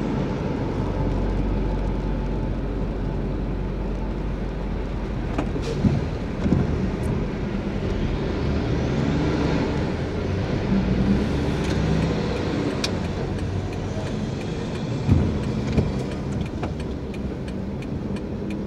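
Car driving slowly in stop-and-go traffic, heard from inside the cabin: a steady low engine and road rumble with a few scattered clicks and knocks.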